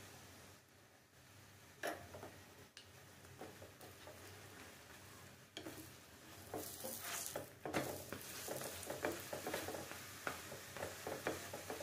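Oiled methi paratha shallow-frying on a nonstick pan: a faint sizzle with a few light clicks of a spoon against the pan in the first seconds. From about six seconds in the sizzling grows louder, with quick ticks and scrapes as a plastic slotted spatula presses the paratha against the pan.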